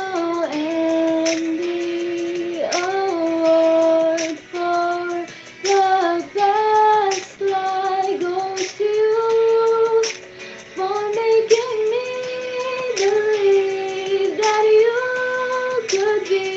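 A young woman singing a song close to a microphone, holding long notes that step up and down in pitch, with short breaks between phrases.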